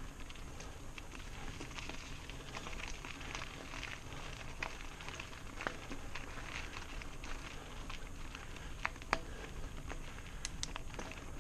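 Mountain bike rolling along a gravel and dirt trail: a steady crunch and patter of tyres on loose stones, with scattered sharp clicks and rattles from the bike, a few louder ones near the end.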